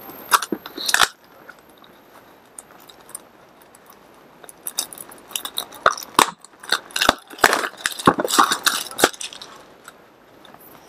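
Clear plastic shrink-wrap crinkling and tearing as it is peeled off a cardboard box, in irregular crackling bursts: a flurry at the start, then a busier run in the second half.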